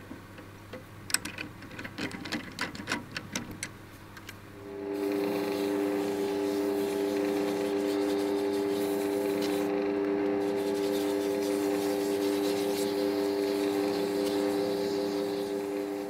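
A few light clicks and knocks, then, about five seconds in, a lathe starts up and runs at a steady speed with an even hum. An abrasive held by hand hisses against the spinning cast-resin shift knob as it is sanded and polished. The hum fades near the end.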